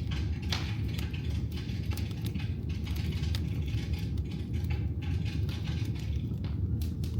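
Firewood burning in a fireplace: a steady low rumble of the flames, with frequent sharp crackles and pops from the burning wood.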